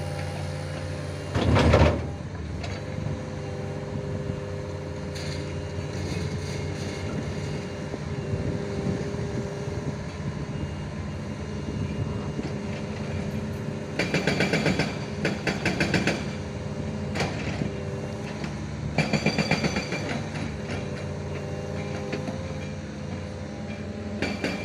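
Mini excavator's diesel engine running steadily, with a short loud burst about a second and a half in. Its tracks clank rapidly in two spells, about two-thirds of the way through and again near the end.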